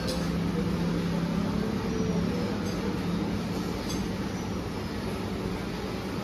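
Steady low room hum in a restaurant, with a few light clinks of a spoon on steel plates, about three times.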